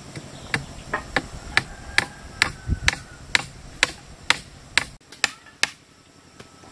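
Hand hammer striking bamboo railing posts: a run of about fifteen sharp knocks, roughly two a second, that stop about a second before the end.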